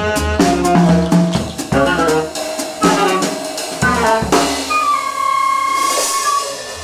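Live jazz band of flute, saxophone, bass and drum kit playing a fast, busy passage of quick notes over the drums, then one long held high note over a cymbal wash about halfway through, the band thinning out near the end.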